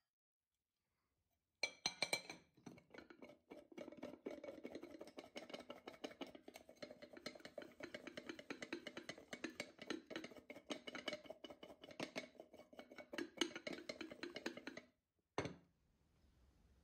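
Sliced apples with raisins and cinnamon shaken in a lidded glass bowl to coat them: a fast, dense rattling clatter of fruit against the glass for about thirteen seconds that stops suddenly, followed by a single thump as the bowl is set down.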